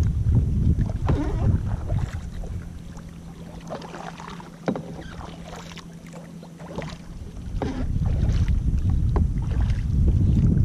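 Paddle blades dipping and splashing in lake water as a tandem kayak is paddled, stroke after stroke. Wind buffets the microphone with a low rumble that eases off for a few seconds mid-way and then returns.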